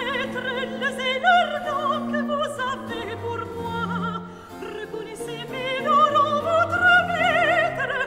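Operatic singing with strong vibrato over a classical accompaniment.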